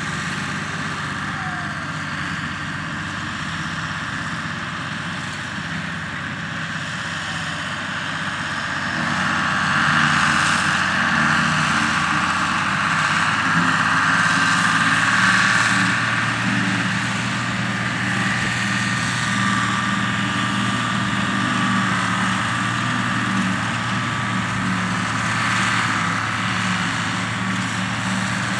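Diesel tractor engines working steadily under load as a John Deere 3050 pulls a trailed forage harvester chopping grass silage, with a steady high whine over the engine note. It grows louder about a third of the way in as a second tractor hauling a silage trailer passes close, then stays steady.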